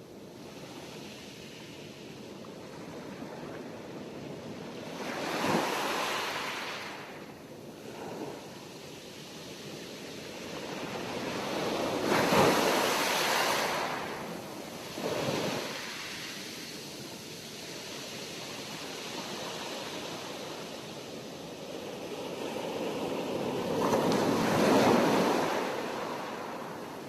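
Sea waves breaking and washing in, a steady hiss of surf that swells into louder surges every several seconds; the biggest come about halfway through and near the end.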